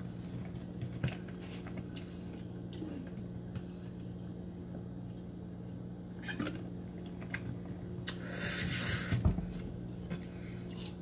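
Quiet eating of a crispy thin-crust Pizza Hut melt: small chewing and handling clicks over a steady low hum, then about eight seconds in a hissing rustle lasting about a second that ends in a soft thump.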